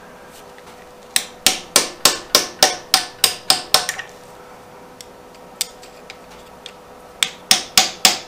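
A hammer striking the end of a screwdriver, metal on metal, driving it into an engine's old crankshaft oil seal to pry it out. There is a run of about ten quick blows at roughly three a second, then a lone lighter knock, then a few more blows near the end.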